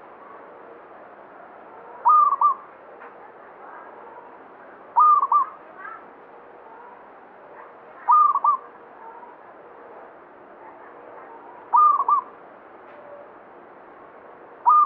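Local zebra dove (perkutut lokal) singing: a short phrase of a few quick rolling coo notes, repeated about every three seconds.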